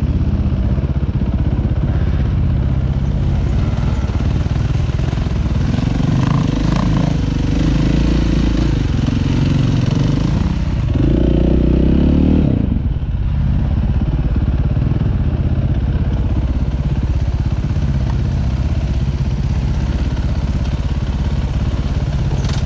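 Dirt bike engine running while being ridden. It pulls harder from about six seconds in, is loudest around eleven to twelve seconds, then the throttle is shut briefly and it runs on steadily.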